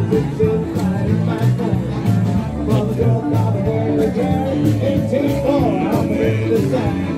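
Upbeat music with a steady beat, bass and guitar, played loud for dancing.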